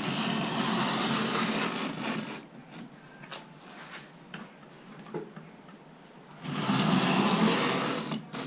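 Hand abrading of a composite skin along a hinge line, wearing it down toward the Kevlar layer. Two spells of steady rasping rubbing, each about two seconds long: one at the start and one near the end, with a few light taps between.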